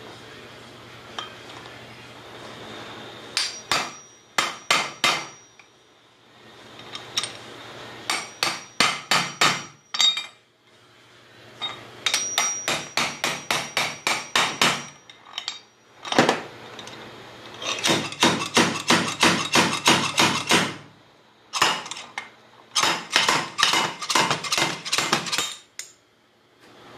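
Hammer blows on a steel tool seated in a car flywheel: quick runs of sharp metal-on-metal strikes, about four a second, in five bursts with short pauses between them. The steel flywheel rings under some of the blows.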